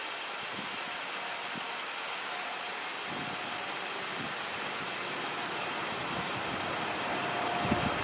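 Steady outdoor traffic and engine noise; the pole siren is silent. A faint steady tone comes in briefly twice, about two and a half seconds in and again near the end.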